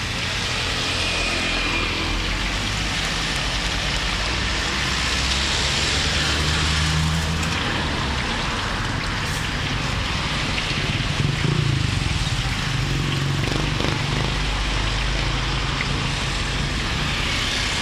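Hot oil sizzling and bubbling steadily in a large wok as battered durian and champedak pieces deep-fry. Underneath is the low rumble of road traffic, with a brief louder knock about eleven seconds in.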